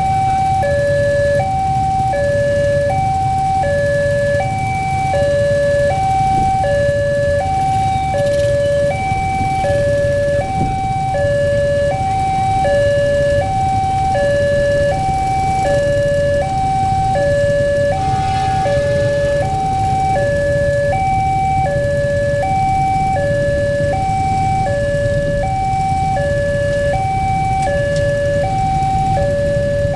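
Railway level-crossing warning alarm sounding a steady two-tone signal, high note then low note, repeating about every second and a half, the signal that a train is approaching. A steady low rumble runs underneath.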